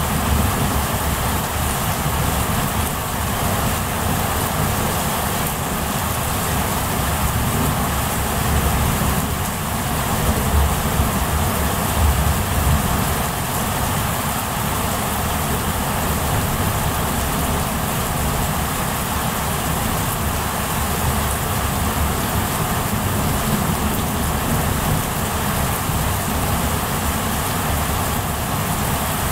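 Heavy rain falling steadily in a storm, an even hiss with a low rumble underneath that swells briefly about ten seconds in.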